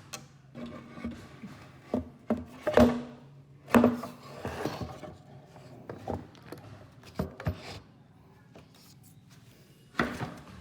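Wooden furniture parts being handled and worked: a series of knocks and short rubbing scrapes of wood, the loudest about three and four seconds in, with another knock near the end.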